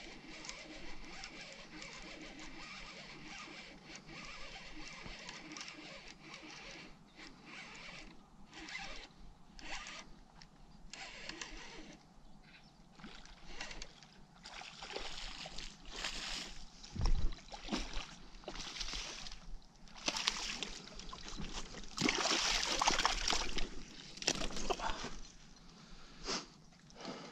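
A hooked zander (pike-perch) thrashing at the surface as it is played in and landed: repeated splashes and water noise in the second half, loudest a little over 20 seconds in, with a sharp thump about 17 seconds in.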